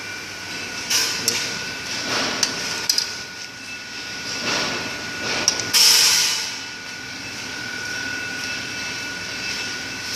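Pneumatic wire butt welding machine working: a steady high whine with several sharp clicks and knocks, and one loud hiss about six seconds in.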